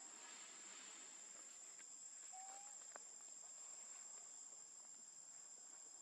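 Faint, steady high-pitched drone of insects. A brief whistle-like note sounds about two and a half seconds in, and a single soft click follows at about three seconds.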